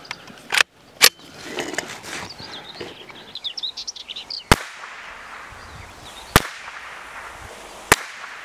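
.22 LR rimfire rifle fired several times, short sharp cracks a second or more apart. Birds chirp between the first shots.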